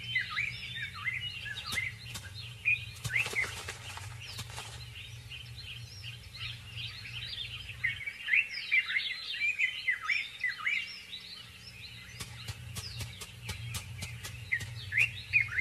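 Many small birds chirping and twittering, the calls short and sliding in pitch, over a low steady hum, with runs of sharp clicks about three seconds in and again near the end.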